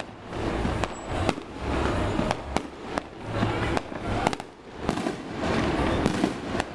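Fireworks going off: about ten sharp bangs at irregular intervals, sometimes two or three within half a second, over a continuous rumble of further bursts.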